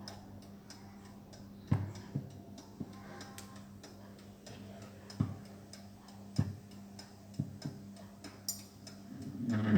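Brass-cased Bayard Tapageur mechanical alarm clock ticking, with a few louder knocks at uneven intervals and a steady low hum underneath.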